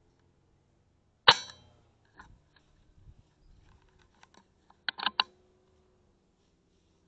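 A single rifle shot about a second in, sharp with a short ringing tail. About four seconds later come three quick clicks.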